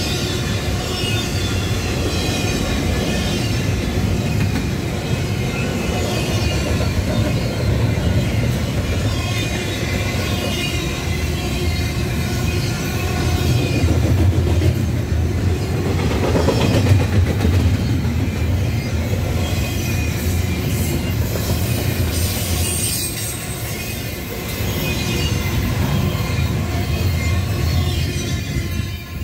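Double-stack intermodal well cars of a freight train rolling past close by: a steady rumble of steel wheels on rail, with a thin high wheel squeal in the first half. The sound swells near the middle and drops away at the very end as the last car clears.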